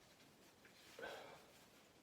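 A single short sneeze about a second in, starting suddenly and fading quickly.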